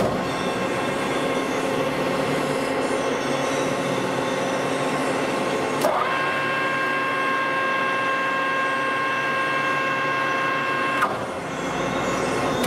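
Metal-cutting lathe (Celtic 14 x 1000 mm) running, its spindle drive starting up abruptly with a steady mechanical running noise. After a click about halfway through, a steady whine joins in; another click near the end cuts it off and the running sound drops.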